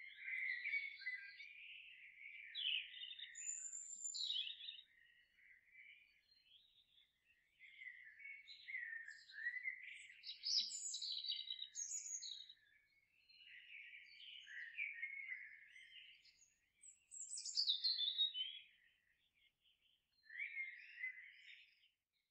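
Songbirds singing: varied chirps, trills and a few quick falling whistles, in bursts a few seconds long with short pauses between.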